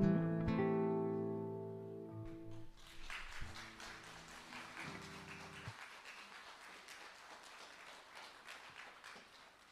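A final strummed chord on an acoustic guitar rings out and fades over about two seconds. From about three seconds in, audience applause follows and gradually dies away.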